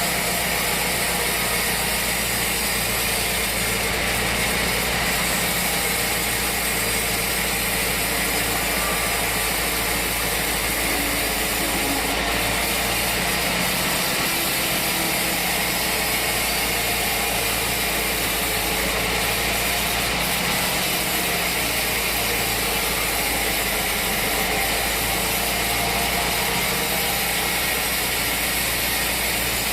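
Sawmill machinery running steadily, an engine-driven mill with an even, unchanging noise.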